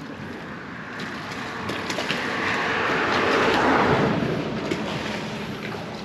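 A road vehicle passing close by on the highway: tyre and engine noise swells to a peak about three and a half seconds in, then fades away.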